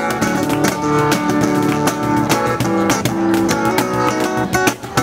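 Live flamenco music: an acoustic flamenco guitar played with quick strummed and plucked notes, over sharp hand strikes on a cajón.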